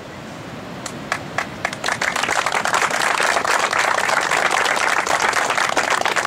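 Small crowd applauding: a few scattered claps at first, swelling into steady applause after about two seconds.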